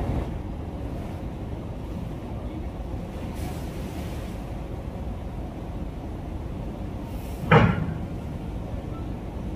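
Steady low rumble of heavy trucks waiting at a ferry's loading ramp, with one short, loud bang about seven and a half seconds in.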